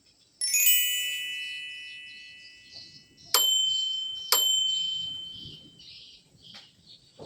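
Bright bell-like chime tones: a shimmering cluster of high notes strikes about half a second in and fades slowly, then two sharp ringing dings follow about a second apart.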